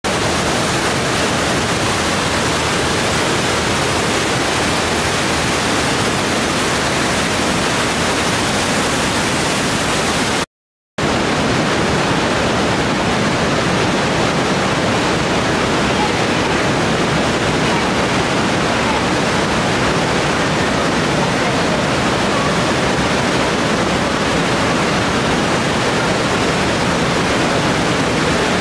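Trümmelbach Falls, a waterfall plunging through a rock gorge inside the mountain, rushing in a loud, steady noise. It drops out for about half a second around ten seconds in, then the rushing resumes.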